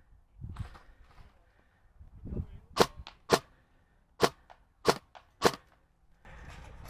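Airsoft gun firing five sharp single shots, spaced about half a second to a second apart.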